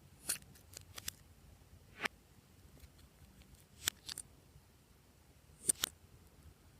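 Glossy slime being worked, giving sharp little pops and clicks at irregular intervals, about eight in all, as trapped air bubbles burst.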